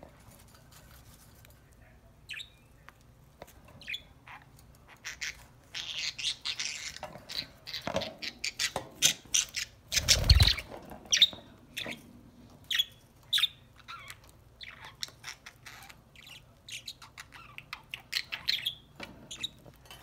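Budgerigars chirping and chattering in many short, high calls, busiest through the middle. A loud low thump comes about halfway through.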